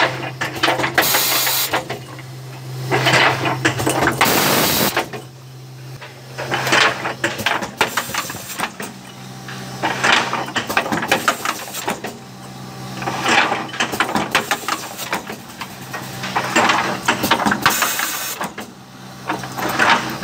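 Automatic perfume filling and capping machine running: a steady motor hum under clattering mechanical strokes that come back about every three seconds as bottles are moved on, filled and capped.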